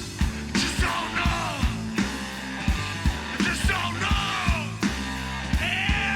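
Live blues-rock band playing: a drum kit keeps a steady beat under bass and electric guitar, with high wailing lines that slide down in pitch over the top.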